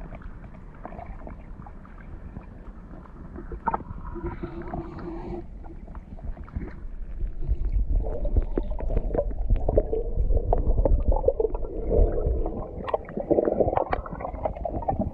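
Muffled underwater sound picked up by a camera in the water: low rumbling water movement with many small knocks and some gurgling bubbles, growing clearly louder about halfway through as a large carp swims close past the camera.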